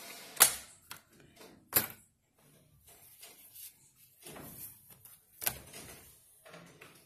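Craft supplies and paper being handled: soft rustling, broken by three sharp clicks or knocks, about half a second in, near two seconds in and about five and a half seconds in.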